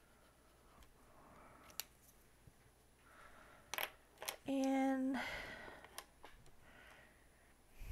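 Quiet desk handling: a felt-tip marker scratching over paper at first, then a few sharp light clicks and some rustling as markers and paper dollar bills are picked up and moved.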